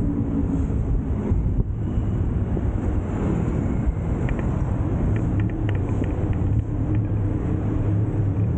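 Tuk-tuk's small engine running steadily while underway, with road and wind noise heard from on board. A few light clicks come in about halfway through.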